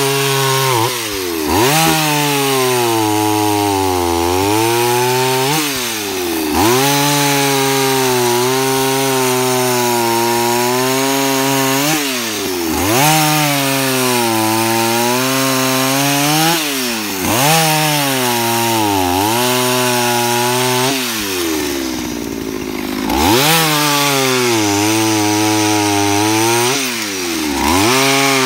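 Partner P70 two-stroke chainsaw cutting through a log at full throttle. Its engine pitch sags each time the chain bites into the wood and rises again as the load comes off, over and over. About three quarters through it falls briefly toward idle, then revs back up.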